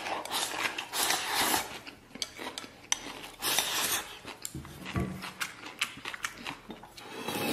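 Wooden chopsticks clicking and scraping against a ceramic rice bowl as food is shoveled into the mouth, with close-up eating noises. The sound comes in short scrapes and clicks.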